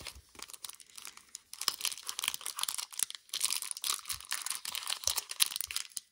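Foil wrapper of a Pokémon TCG Fusion Strike booster pack crinkling and tearing as it is opened by hand: dense runs of fine crackling with short pauses.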